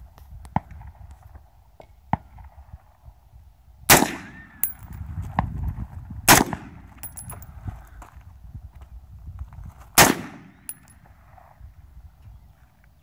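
Three single shots from an Aero Precision 11.5-inch short-barreled AR-15 rifle, about two and then four seconds apart, each with a brief trailing echo.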